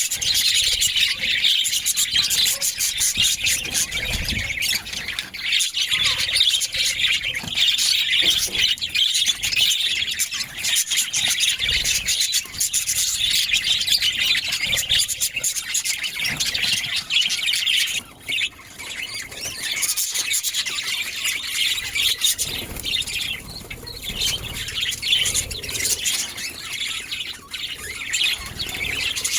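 Budgerigar chatter: a continuous stream of fast chirps and squawks, with a brief lull about eighteen seconds in.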